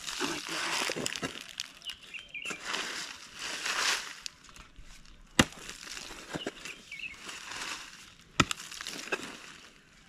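A hand mattock chopping into hard-packed dry soil. Scraping, crumbling swings alternate with two sharp metal-on-earth strikes, the loudest sounds, about three seconds apart in the second half.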